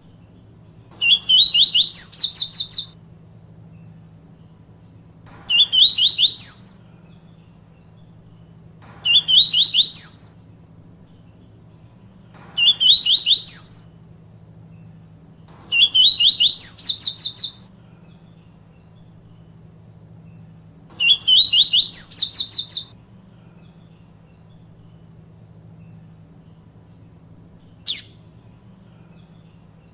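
Papa-capim seedeater singing its 'tui tui viviti' song: six short phrases a few seconds apart, each a quick run of high trilled notes, then a single sharp note near the end. A faint steady hum lies underneath.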